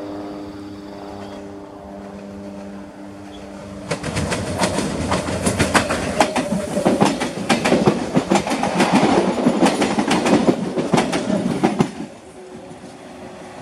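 Mafersa-built CPTM Série 1700 electric multiple unit passing close on the track. First comes a steady hum of several tones as it approaches. Then, about four seconds in, loud wheel clatter starts, with rapid clicks over the rail joints, and it drops off about twelve seconds in.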